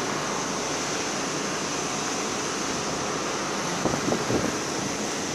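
Steady rushing wind noise on the microphone, with a few brief louder bumps about four seconds in.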